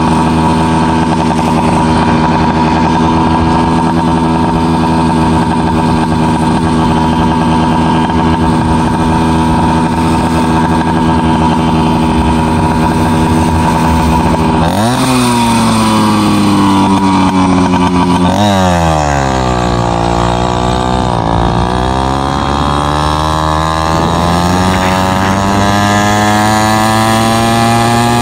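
FM-80 two-stroke motorized-bicycle engine with a mini expansion chamber, idling steadily, then revving sharply about halfway through as the bike pulls away. Its pitch falls back, dips, then climbs steadily as the bike gathers speed.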